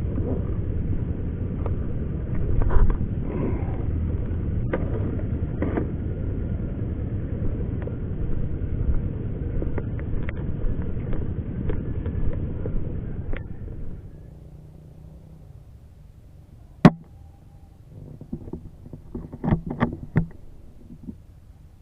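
A steady low rumble with scattered clicks, which stops abruptly about 14 s in. About 17 s in comes a single sharp crack from an HW100 PCP air rifle being fired, followed a couple of seconds later by a short run of clicks and rustles.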